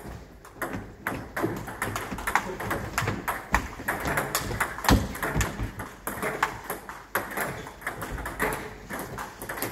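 Table tennis balls clicking against bats and tables, with rallies going on at several tables at once: a quick, irregular run of sharp ticks, with two heavier knocks about three and a half and five seconds in.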